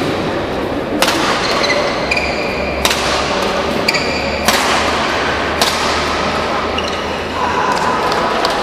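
Badminton rally: four sharp racket hits on the shuttlecock, about one to two seconds apart, with brief high squeaks between them.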